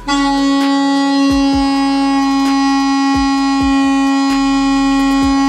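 Home-made balloon-membrane bugle (a balloon stretched over a PVC pipe end, blown through a straw) sounding one steady, held buzzing note as the membrane vibrates, with a faint beat of background music underneath.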